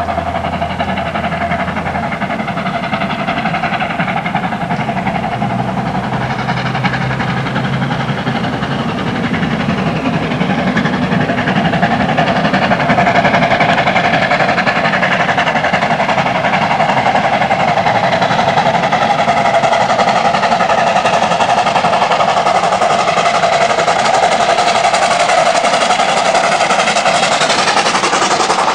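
WAGR Dd class 4-6-4 tank steam locomotive working hard up a climb with a passenger train, growing louder about twelve seconds in as it comes close, with the carriages rolling past near the end.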